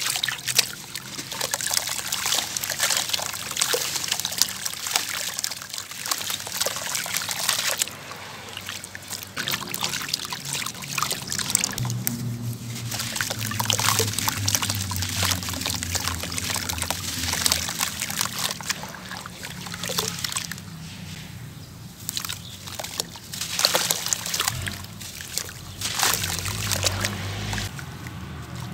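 Wet sand-cement being crumbled and squeezed by hand over a basin of water: gritty crunching and crackling as lumps break apart, with water trickling and splashing as the crumbs and drips fall in.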